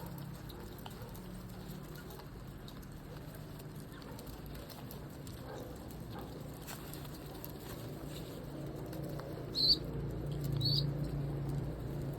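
Tusi pigeons flapping and moving about, with a faint patter, over a steady low hum. Two short high chirps, about a second apart, come near ten seconds in.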